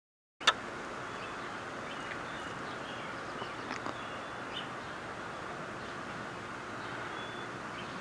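Outdoor ambience cutting in with a sharp click about half a second in, then a steady hiss with a few faint, short bird chirps scattered through it.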